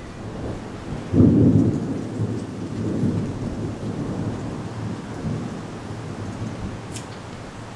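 Thunder: a sudden clap about a second in, then a low rolling rumble that swells again and slowly dies away, over a steady hiss of storm wind and rain.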